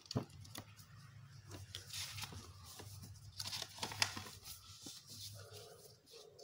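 A sheet of paper rustling and crackling as hands fold, crease and open it out. There are many short rustles throughout, with a sharp crinkle about four seconds in.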